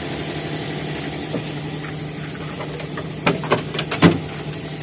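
An engine idling steadily, with a quick run of sharp clicks or taps a little over three seconds in.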